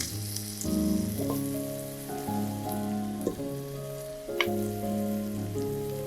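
Food sizzling as it fries in a pan, a steady crackling hiss, over background music with changing sustained notes. There is a sharp tap about four and a half seconds in.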